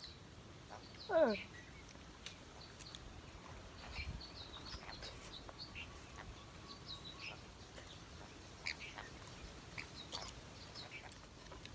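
Pet parrot calling: one loud, short cry that falls steeply in pitch about a second in, then scattered small high chirps and clicks.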